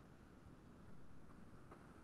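Near silence: faint background hiss.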